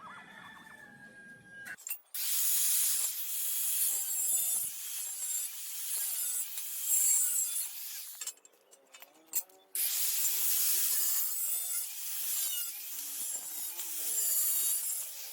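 A steel square tube being cut: a loud, steady, hissing cutting noise in two long spells, with a pause of about two seconds between them. In the pause a bird's wavering cooing call can be heard.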